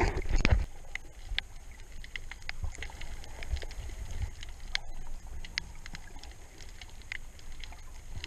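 Water noise heard through an underwater camera housing: a loud turbulent rush of water for the first half second, then a low steady rumble with many scattered sharp clicks and crackles, and a short surge of water noise at the very end.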